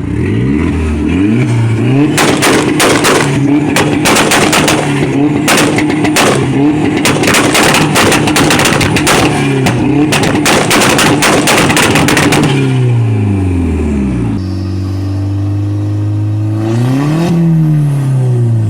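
Tuned car engine held at steady revs with a rapid string of crackling pops and bangs from the exhaust for about ten seconds. The revs then fall to idle, with one short rev blip near the end.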